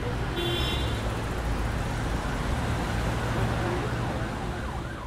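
Road traffic noise: a steady low rumble of passing vehicles, with a few faint wavering tones near the end.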